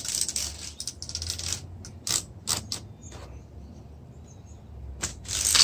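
Utility knife drawn along a straightedge, scraping at 10 mm twin-wall polycarbonate sheet in several short strokes, with a louder, longer stroke near the end. The sheet is too thick for the blade to cut through.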